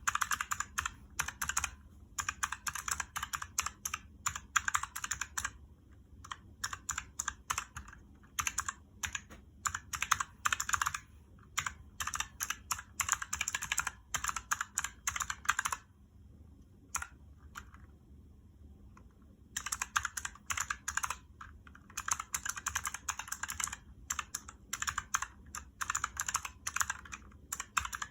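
Fast typing on a Razer mechanical keyboard with clicky purple switches: runs of rapid keystrokes in bursts, with a pause of a few seconds past the middle where only a few single key clicks sound.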